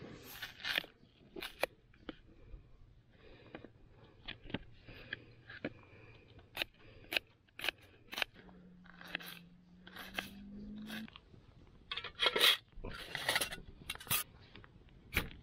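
Kitchen knife slicing through a raw onion onto a plastic chopping board: a string of crisp, uneven cuts and taps. Louder handling rustles and knocks come near the end.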